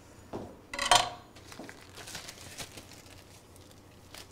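Plastic packaging of ground turkey being peeled open and handled, crinkling faintly, with one sharp clatter about a second in.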